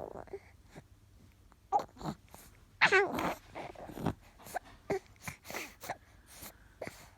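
A baby making short vocal noises. The loudest is a wavering, high-pitched sound about three seconds in, with breathy sounds and small clicks in between.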